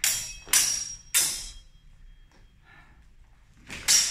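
Longsword blades clashing: three sharp ringing strikes about half a second apart, then another exchange of blade contacts near the end.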